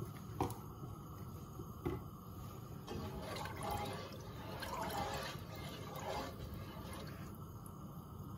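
Spiced cooking water being stirred in a large stockpot with a slotted plastic spatula: the liquid swishes and sloshes, loudest in the middle few seconds. Near the start there are a couple of light clicks.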